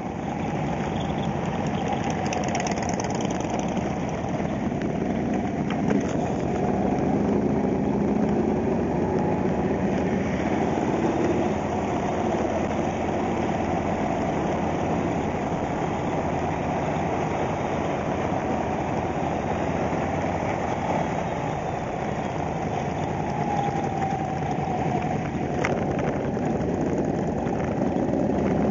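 Harley-Davidson touring motorcycle's V-twin engine running steadily as it rides slowly in a group of other motorcycles.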